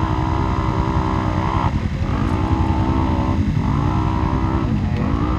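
Polaris RZR side-by-side engine revving up and down in repeated surges, about three or four in a row, each rising then falling in pitch, over a deep rumble.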